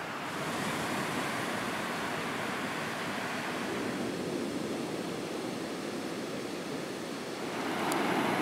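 Ocean surf washing onto a sandy beach: a steady rushing noise that ebbs and swells, growing louder near the end.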